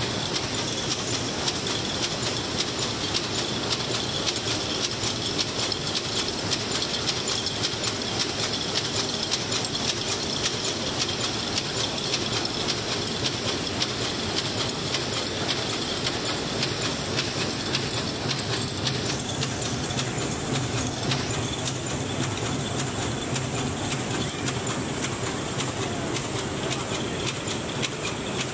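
Automatic paper tray forming machine (KY-B) running at production speed as it erects paperboard boxes, a rapid, even mechanical clatter that keeps up without a break.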